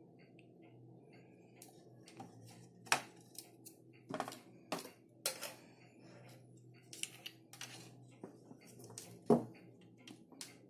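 Irregular clicks, taps and knocks of small hard objects being handled, with two louder knocks about three seconds and nine seconds in, over a faint steady hum.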